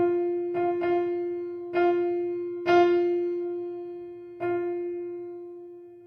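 Background music: a single piano-like keyboard note struck about six times at uneven intervals, each left to ring and fade before the next.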